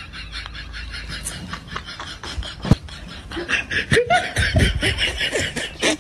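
Laughter in quick repeated pulses, getting louder in the second half, with one short sharp sound near the middle.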